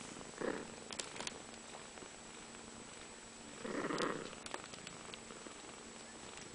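Cats purring softly while two kittens nurse from their mother, with a brief louder sound about four seconds in and a few faint clicks.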